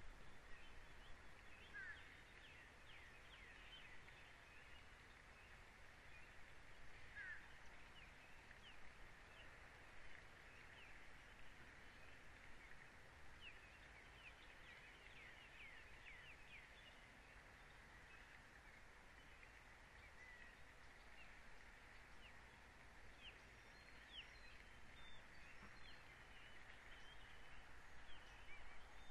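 Faint outdoor ambience with many quick, distant bird chirps scattered throughout.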